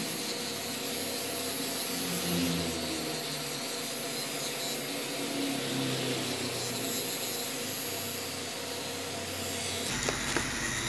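HTC electric hair clipper running steadily as it trims the short hair at the nape and back of the head.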